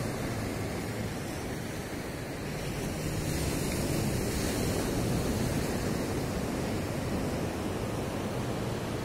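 Sea surf washing onto a sandy beach, a steady rush of breaking waves that swells slightly a few seconds in, with wind rumbling on the microphone.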